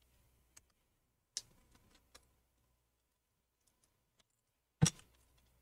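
A few scattered light clicks and taps from gloved fingers working at the battery connector and tape inside an opened MacBook Air, the loudest one near the end.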